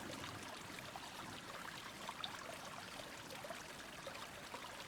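Faint, steady trickle of running water, like a small stream.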